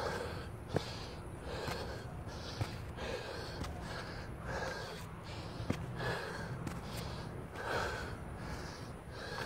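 Heavy, laboured breathing of a man out of breath from climbing a long flight of steep outdoor stairs, with a breath in or out roughly every three-quarters of a second.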